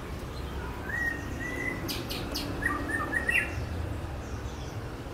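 A caged bird calling with short whistled chirps: a rising note about a second in, then a quick run of short notes, over a steady low background rumble.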